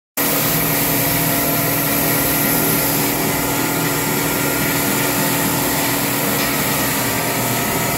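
A machine running steadily, a loud, even whir with a steady hum, starting and stopping abruptly.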